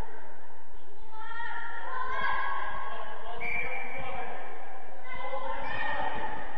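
Young players' voices shouting and calling over one another, echoing in a large sports hall, with a few dull low thuds of the futsal ball being kicked.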